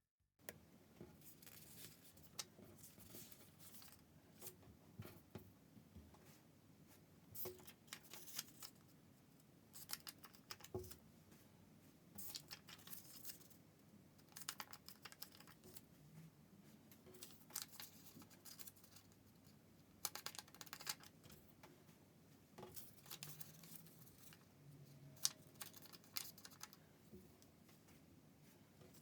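Faint rustling and creasing of origami paper being folded by hand, with short crinkles and scrapes scattered throughout.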